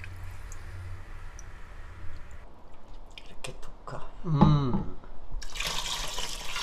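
Soy sauce being poured: it trickles from a plastic jug into a glass measuring cup, then runs from the cup in a steady splashing stream into a plastic container over the last second or so. A short pitched sound comes about four and a half seconds in.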